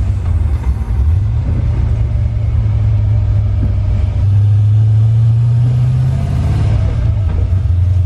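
LS V8 engine in a 1999–2004 Mustang running under way, heard from inside the cabin as a steady low drone. The note lifts slightly about a second in and eases off about six seconds in.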